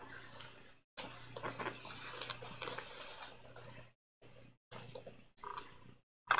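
Rustling with soft clicks and knocks from a cat being handed over and held against the microphone. It cuts in and out in short stretches over a faint low hum.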